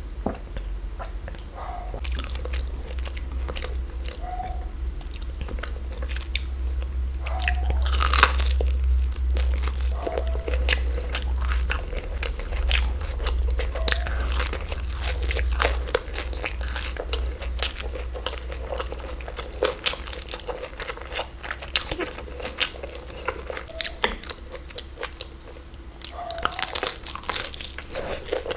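Close-miked eating: crunchy bites and chewing, many sharp crackling clicks, with heavier bites about eight seconds in and again near the end. A steady low hum runs underneath.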